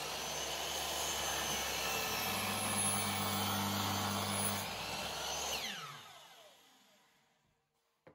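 Electric miter saw running and cutting through a birch log, then released and spinning down with a falling whine from about five and a half seconds in. A short knock near the end.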